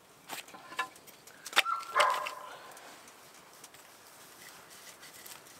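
A few sharp wooden knocks and clicks as wooden wedges are handled and fitted into a split birch log, and about two seconds in a short high whine that slides down and fades.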